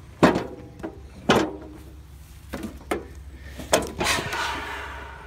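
Several separate clunks and knocks, then a rattling scrape near the end that fades out, from the body parts of a Cub Cadet garden tractor being handled.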